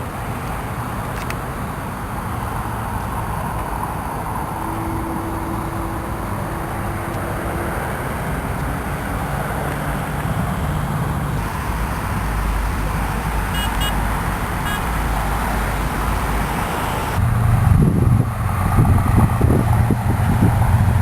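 Engine noise from a motor vehicle, a low steady hum over traffic-like background noise, growing louder about seventeen seconds in.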